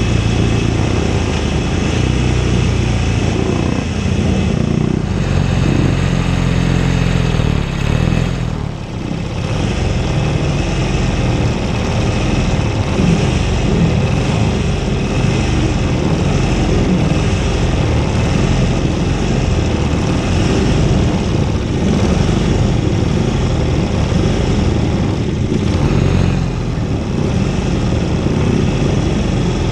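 Classic racing motorcycle engine running hard at race speed, the revs climbing and dropping through gear changes, with a brief easing off about eight seconds in.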